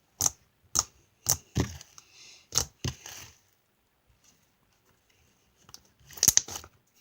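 Close handling noise: sharp crinkling and tearing sounds, about six in the first three seconds, then a pause and a few more near the end.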